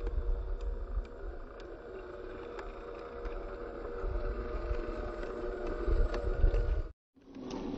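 RC crawler truck's 370 electric motor and gearbox whining steadily as it creeps over dry dirt and rocks, with light ticks of gravel and gusts of wind rumbling on the microphone. The sound cuts out abruptly for a moment about seven seconds in.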